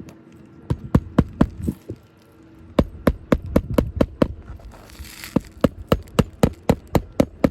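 Hammer striking on an asphalt shingle roof in three quick runs of sharp blows, about three strikes a second.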